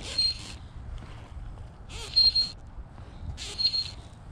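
Fly line drawn by hand through the rod guides in three short pulls, each a brief zipping hiss with a thin whistle in it, spaced a second and a half to two seconds apart. Wind rumbles on the microphone underneath.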